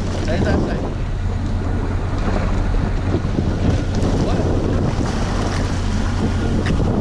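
Wind buffeting the microphone on a fishing boat at sea, over a steady low engine hum.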